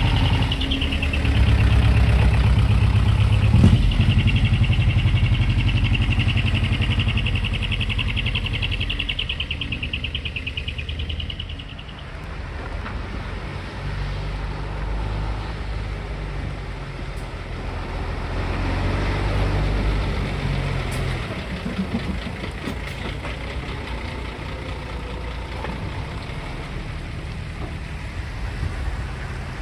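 Heavy truck engines running as trucks move past. A loud low rumble lasts about the first twelve seconds and then drops away. Another truck's engine swells and fades midway.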